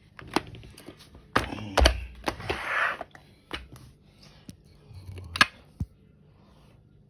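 Handling noise: an irregular run of sharp clicks and knocks with a short scraping rustle, loudest about two seconds in and again about five and a half seconds in.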